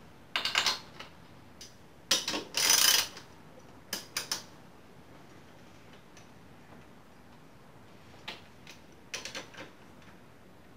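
Short metallic clicks and clinks of hand tools and bolts while a motorcycle front brake caliper is fitted back onto the fork leg, coming in a few separate clusters.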